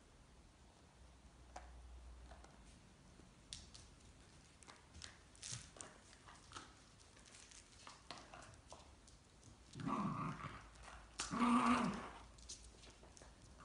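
Puppies play-fighting with their mother dog: faint scuffles and clicks of paws and toys, then two short bouts of play growling near the end, the second the loudest.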